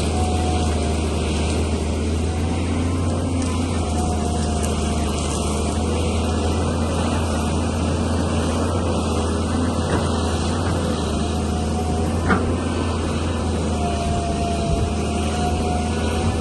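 Heavy machinery diesel engine running steadily with a deep low hum, and a single sharp click about twelve seconds in.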